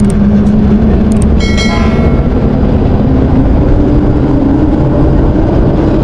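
River-crossing cable lift carrying an open cabin along its cable: a steady, loud rumbling drone that slowly rises in pitch as the ride gets under way, with a few clicks about a second in and a brief metallic squeal soon after.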